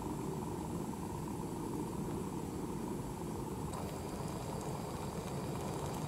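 Gas canister camping stove's burner running steadily under a pot. It is an even low rush with no breaks, its tone shifting slightly a little past halfway.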